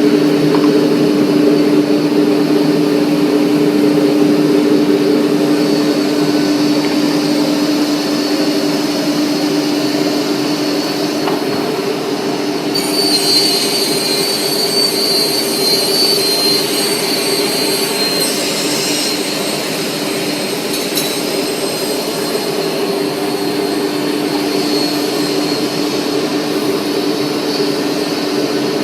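Horizontal panel saw running with a steady hum from its motor and spinning blade. From about 13 s for roughly six seconds, a higher whine and hiss joins in as the blade cuts through a board.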